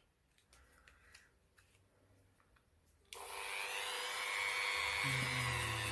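A few faint handling clicks, then a Dremel rotary tool fitted with a nylon brush switches on about three seconds in and runs steadily with a high whine, ready to scrub dirt off a revolver's hammer and trigger.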